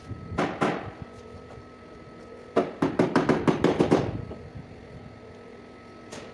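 Hammer blows on the crumpled rear fender and apron sheet metal of a Ford Taurus, straightening collision damage. Two strikes come about half a second in, then a fast run of about ten strikes near the middle, and one more near the end.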